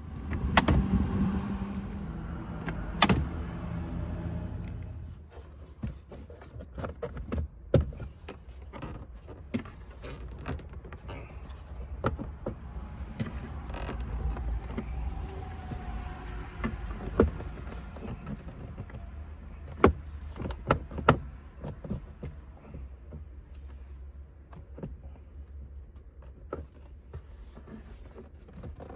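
Work inside a car's cabin: a small electric motor hums for the first five seconds or so and stops, followed by scattered clicks and knocks of parts being handled.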